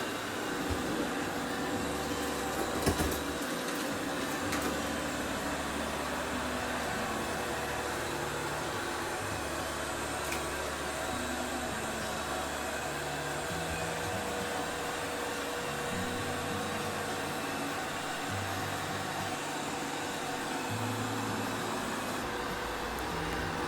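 iMartine C900 robot vacuum cleaner running with a steady noisy hiss, under background music whose low notes change every second or two. A short knock about three seconds in.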